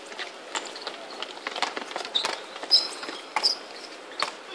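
Basketball game on a hard outdoor court: the ball bouncing as it is dribbled, players' footfalls, and a few short high sneaker squeaks partway through.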